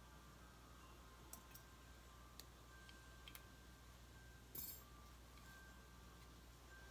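Near silence broken by a few faint clicks and light knocks of hard resin doll parts being handled during restringing, with a short rustle about four and a half seconds in.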